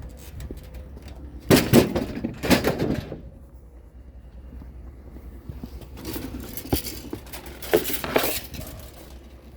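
Clattering and clinking of loose metal pieces being handled, in two bouts a few seconds apart, with sharp knocks among them.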